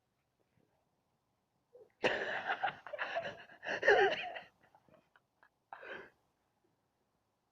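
Loud, breathy, wheezing human vocal noise starting about two seconds in and lasting a couple of seconds, with a wavering cry near the end of it, then a shorter burst near six seconds.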